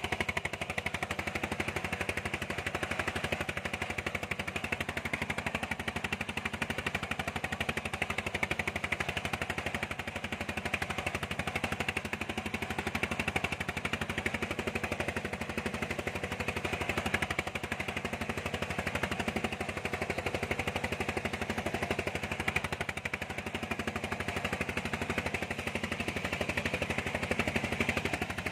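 A fishing trawler's diesel engine running steadily, with a rapid, even knocking beat.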